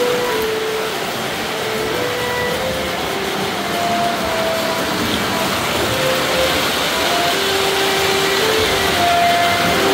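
Model train running on its track with a steady whirring rumble of motor and wheels. Over it, a simple tune plays as single held notes, one after another.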